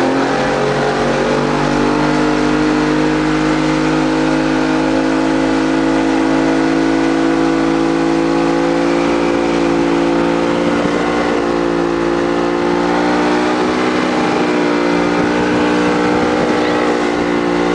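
Motorboat engine running at high, steady revs while towing a banana boat across the water, its pitch climbing just at the start and then holding.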